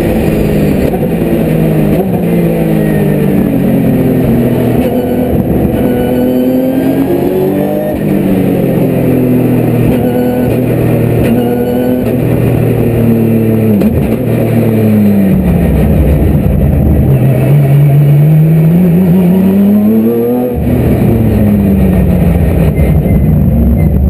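Porsche 911 GT3 Cup race car's flat-six engine heard from inside the cockpit at racing speed. Its note climbs and falls again and again as the car accelerates, brakes and shifts through the corners, with one long climb about two-thirds of the way in that ends in a sudden drop at a gear change.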